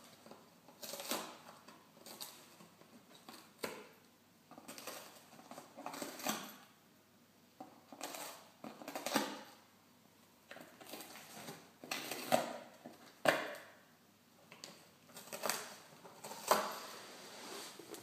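Tonkinese cat chewing and tearing at a cardboard box: crunching, ripping bites in irregular bursts, one every second or so, some sharper than others.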